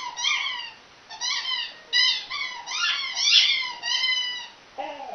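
A dog's rubber squeaky toy squeaking over and over as a chocolate Labrador chews it: about a dozen short, high squeaks in irregular runs. Near the end the Labrador starts a lower, falling whine.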